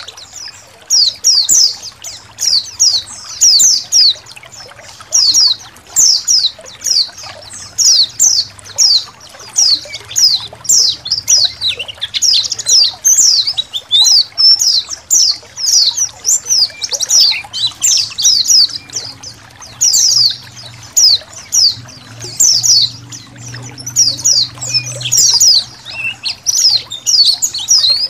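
A colony of white-eyes (pleci) chirping, many quick high descending notes overlapping without pause, over faintly trickling water.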